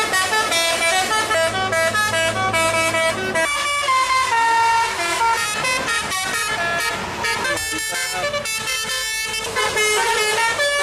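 Telolet bus horns playing their tunes: chains of short, stepped musical horn notes, several tones sounding together. The tune and tone change about three and a half seconds in.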